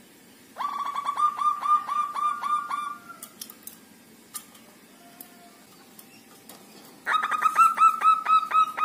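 Zebra dove (perkutut) singing: two bouts of rapid staccato notes, about five a second, the first lasting over two seconds and the second starting about seven seconds in.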